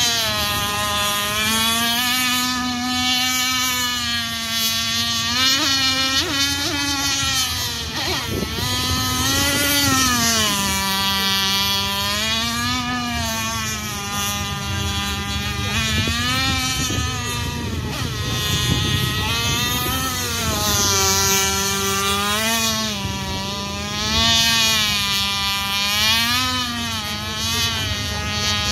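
Radio-controlled speedboat's Zenoah two-stroke petrol engine running at speed, its pitch holding steady and then rising and falling every few seconds as the throttle changes.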